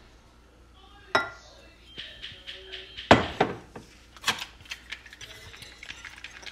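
Glass and kitchenware knocking on a granite counter as a glass oil cruet is handled and set down, the loudest knock about three seconds in. Then a wire whisk starts beating eggs in a ceramic bowl: a fast run of light clinks near the end.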